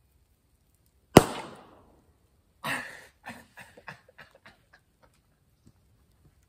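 Something put in the campfire's coals bursting with one loud, sharp bang about a second in, ringing briefly. Then a burst of crackling pops follows and dies away over about two seconds.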